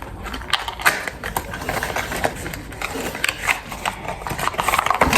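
Product packaging being handled: a run of irregular clicks, taps and crinkles as a small box and bottle are turned over and opened.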